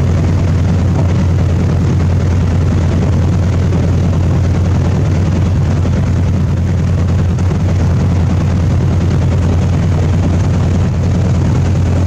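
Boat's engine running steadily, a loud, even low drone heard from on board.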